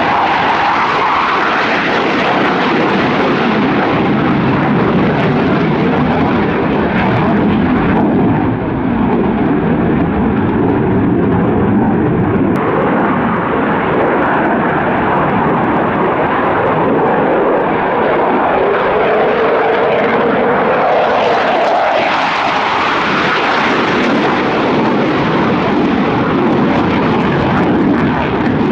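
Eurofighter Typhoon FGR4's twin EJ200 turbofans running loud through an aerobatic display, a steady jet roar. The whine in it sweeps up near the start, then dips and climbs again about two-thirds of the way through as the jet turns and passes.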